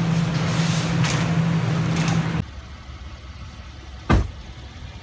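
A shopping cart rolling across a hard store floor, a steady rumbling hum with rattle that cuts off abruptly. Then a quieter background with one sharp thump near the end.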